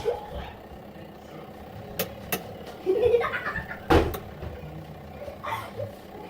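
Giantex twin-tub mini washer's spin dryer clicking several times at irregular spacing over a faint steady hum, the spin basket not turning: the spinner is failing to start.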